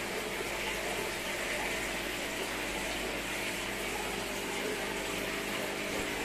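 Aquarium filter or water pump running: a steady hiss of moving water with a low, even hum.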